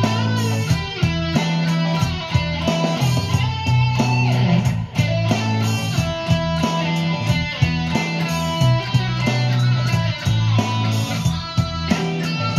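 Sunburst Stratocaster-style electric guitar playing a boogie lead with held and bent notes, over a steady drum beat and bass line.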